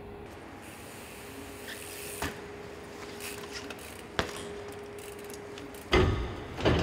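Trials bike hitting the stage set: a couple of light knocks, then two heavy thuds near the end as the bike lands on the flight case and railing.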